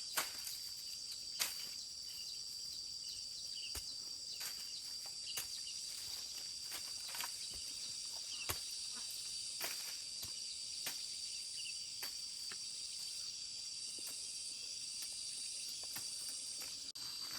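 Steady high-pitched chorus of insects, with scattered light taps every second or so.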